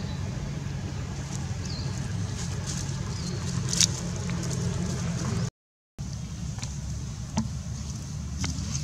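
Steady low outdoor background rumble with a few faint sharp clicks. The sound cuts out completely for about half a second a little past halfway.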